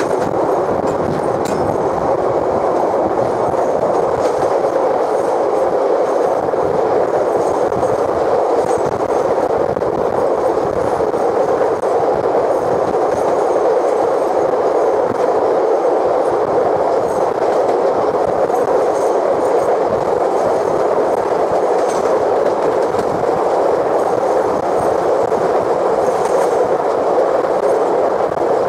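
Steam-hauled passenger train of locomotive Ab608 running steadily along the line: a continuous rumble of wheels on rail, with sparse faint clicks.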